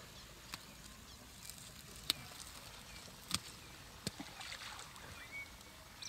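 African elephant drinking in a shallow river: water sloshing and dripping as its trunk draws water and lifts it to the mouth, with a few sharp splashy clicks.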